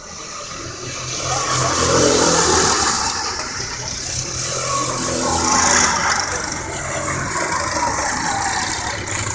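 Racing kart engines running at high revs as karts pass close by, the pitch falling and rising as they go through the corner. They are loudest about two seconds in and again around six seconds in.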